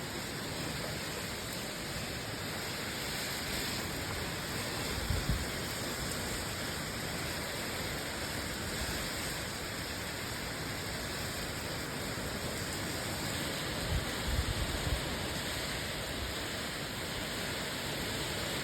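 Steady heavy rain falling, an even hiss, with brief low rumbles twice, about five seconds in and again around fourteen seconds in.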